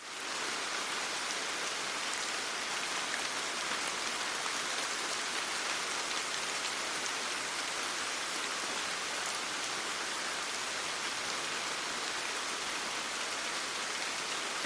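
Steady rain falling, an even hiss of drops that starts and cuts off abruptly.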